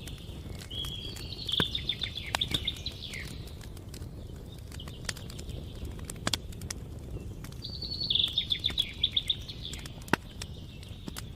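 Campfire burning, with sharp crackles and pops scattered over a low steady rumble. A songbird sings a short trilled phrase twice, about a second in and again near eight seconds.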